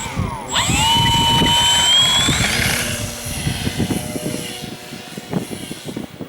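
Model aircraft motor and propeller whining up to speed, holding a steady pitch, then rising higher about two and a half seconds in before fading away. Wind buffets the microphone.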